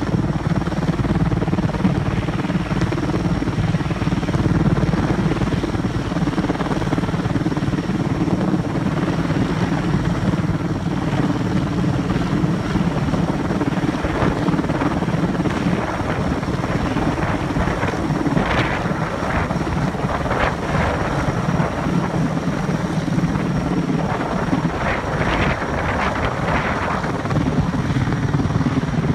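Erickson S-64 Air-Crane heavy-lift helicopter hovering overhead with a slung load: a loud, steady rotor and turbine drone. Short rushes of hiss come through around the middle and again near the end.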